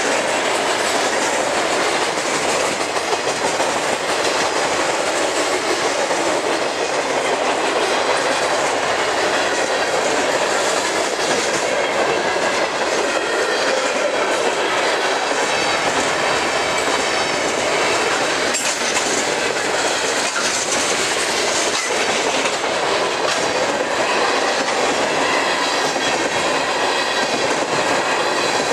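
Steel wheels of freight cars, covered hoppers and refrigerated boxcars, rolling past at speed on the rail: a steady, unbroken rolling noise with clickety-clack of wheels crossing rail joints.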